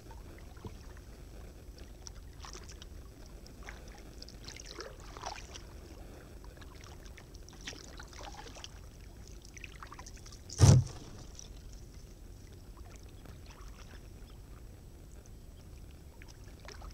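Kayak paddling through floating broken lake ice: light clinks and ticks of ice and water around the hull and paddle over a steady low rumble, and one sharp, loud knock about two-thirds of the way through as the boat or paddle strikes ice.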